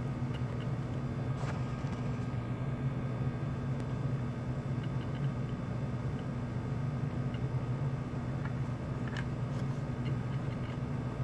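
Model train locomotives giving off a steady low hum, with a couple of faint clicks.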